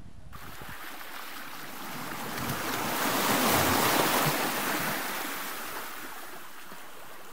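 A single rushing swell of noise that starts about a third of a second in, builds to a peak around the middle, and fades away.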